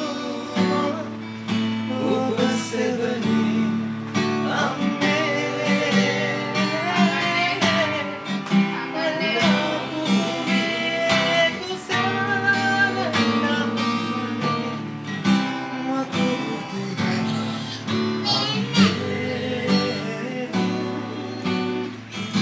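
Acoustic guitar strummed in chords while a man sings along live.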